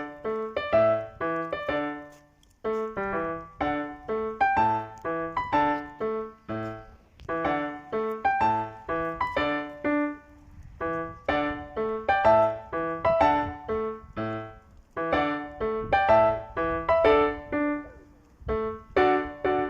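Background music: solo piano playing a gentle melody of separate notes in short phrases.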